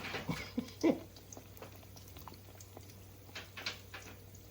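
Dough frying in a pot of hot oil, crackling with scattered small pops, over a steady low hum. A few short pitched sounds, like an animal's whine, come in the first second.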